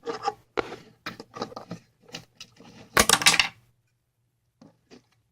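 Clinking and rattling of small metal tools and parts being handled on a work surface, a quick run of sharp clicks that is loudest about three seconds in, then a couple of faint ticks near the end.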